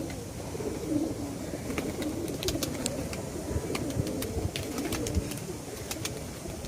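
Domestic pigeons cooing, a low wavering warble that goes on throughout. Between about two and five seconds in, a run of sharp clicks comes in over the cooing.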